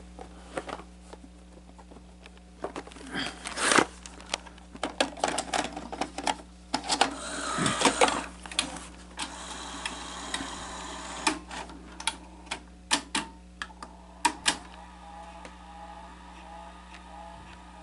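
Sony SL-HF350 Betamax VCR being handled and loaded: an irregular series of mechanical clicks and clunks from the cassette compartment, tape-loading mechanism and buttons, with a longer stretch of mechanism noise about seven to nine seconds in. A steady low mains hum runs underneath.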